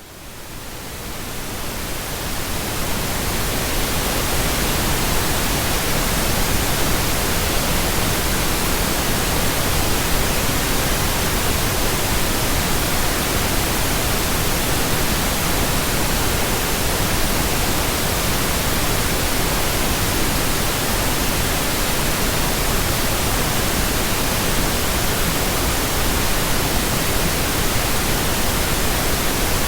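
Synthesized pink noise: a steady, even hiss that fades in over the first few seconds and then holds level.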